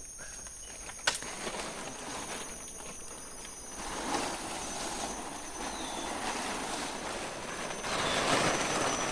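A steady rushing noise that swells about four seconds in and again near the end, over a constant high, thin insect drone, with one sharp click about a second in.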